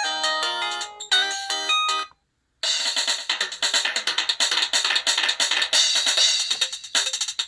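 Samsung SGH-X497 ringtones: a melody of clear electronic notes ends about two seconds in. After a short silence a different ringtone starts, a fast loop of drum and cymbal-like hits.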